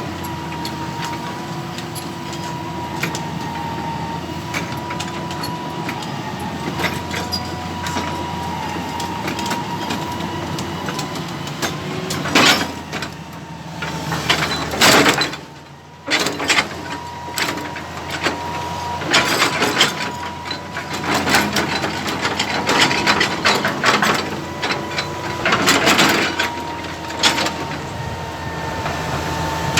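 Excavator engine running steadily with a thin, steady whine over a low hum. About halfway through, repeated knocks and clatter begin, in loud bursts, as logs are handled and stacked.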